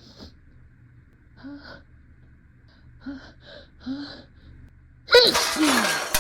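A person's pre-sneeze build-up: four short, catching gasps a second or so apart, then a loud, drawn-out sneeze about five seconds in.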